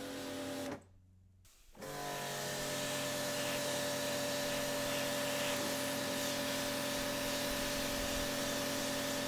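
Electric pressure washer running. Its motor stops just under a second in and starts again about two seconds in with a rising whine that settles into a steady hum, over the hiss of the water jet spraying onto a rubber mat. It cuts off suddenly at the end.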